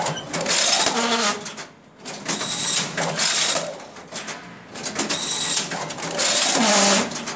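Fully automatic arch strapping machine running its strapping cycles on a carton, feeding, tensioning and sealing plastic strap with a whirring, clacking mechanism. Three loud bursts of machine noise, each a second or two long, come a couple of seconds apart.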